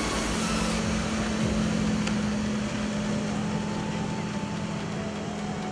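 Inboard engine of a slalom tow boat running at a steady pull speed, a constant hum, as the boat passes.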